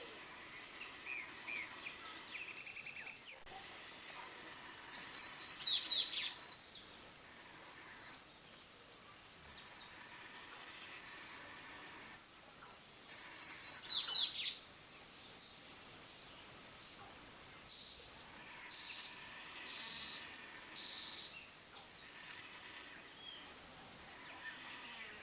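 Buff-necked ibis chicks begging for food: rapid, shrill, high-pitched chirping calls in bouts of a few seconds each, separated by short pauses, two of the bouts much louder than the rest.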